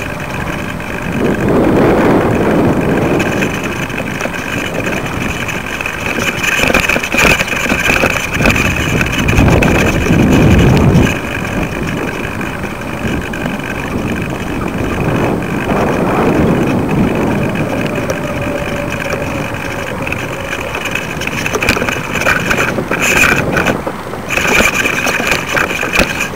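Wind buffeting the microphone of a kite-lifted camera rig, surging and easing in gusts over a faint steady high whine, with a few rattling clicks near the end.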